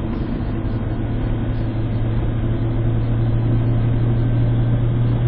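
Car driving, heard from inside the cabin: a steady low engine and road drone under a hiss of tyre noise, swelling slightly as it goes.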